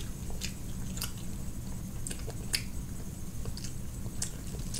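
Someone eating sushi: soft, irregular chewing clicks and smacks, with a fork picking at a California roll in a plastic tray near the end, over a low steady hum.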